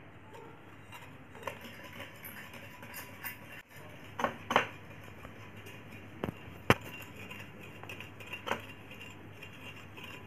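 A stirring rod clinking against the inside of a drinking glass while stirring sand and water, a string of irregular sharp taps, the loudest about two-thirds of the way through.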